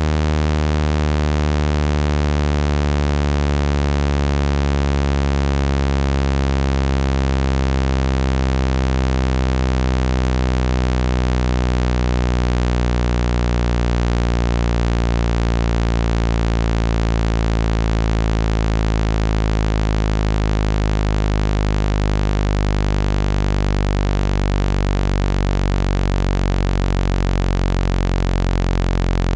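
Synthesized phone-speaker water-eject tone: a steady, loud low hum near 50 Hz with a dense stack of overtones that slowly shift in pitch. The low-frequency vibration is meant to shake trapped water out of a wet phone speaker.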